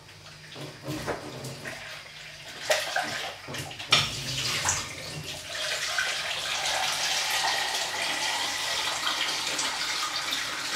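Water running from a kitchen tap into a measuring container, starting about four seconds in after a couple of sharp knocks as the container is handled.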